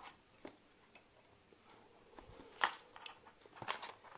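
A few faint clicks and light taps from the liquid cooler's plastic pump block and braided hoses being handled, the clearest two about a second apart past halfway.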